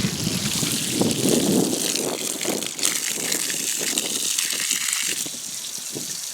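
Water gushing and splashing steadily, with short spatters through it.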